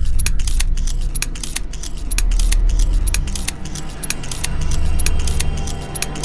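Rapid typewriter-style key clicks, several a second, as a typing sound effect over a steady low drone.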